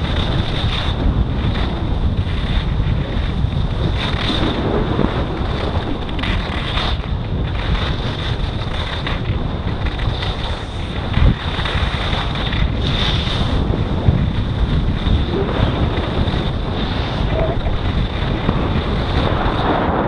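Wind buffeting an action camera's microphone on a fast ski descent, with the hiss and scrape of skis on snow surging about once a second as the turns are carved.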